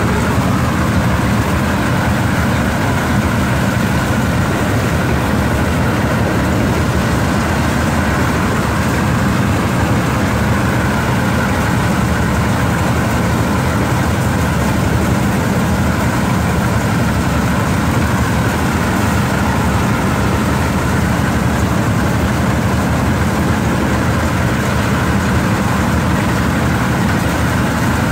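Engine-driven rice thresher running loud and steady while bundles of rice stalks are fed into it.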